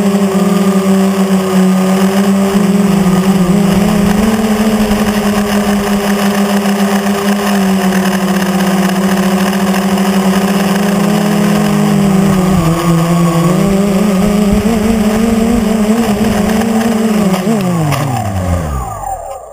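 Quadcopter's electric motors and propellers buzzing steadily, heard from a camera mounted on the craft, the pitch stepping up and down a few times as the throttle changes. Near the end, after touchdown, the motors spin down with a falling whine and stop.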